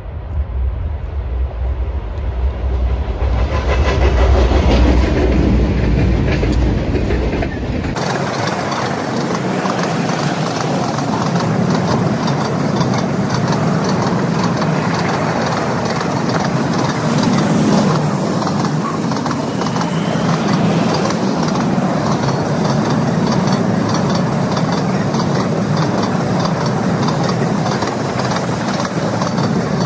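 Diesel locomotives of a freight train approaching, a deep engine rumble growing louder. From about eight seconds in, a long string of freight cars rolls past close by, their steel wheels clattering on the rails.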